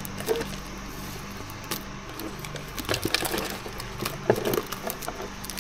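Thin protective plastic film being peeled off an RC truck's plastic body shell: a soft, crackling peel with many small scattered clicks.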